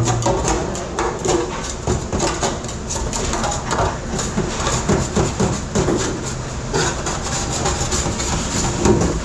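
Dense, continuous clatter of dishes and utensils over a steady machine rumble, typical of a commercial dish station at work.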